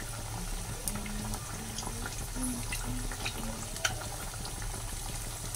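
Potato-dough pinwheels deep-frying in hot oil in a kadhai: a steady bubbling sizzle with scattered small crackles.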